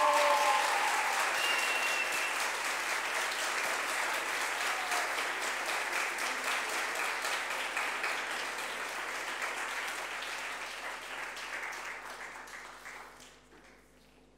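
Theatre audience applauding, with a few brief cheers over the clapping near the start. The applause fades gradually and dies away near the end.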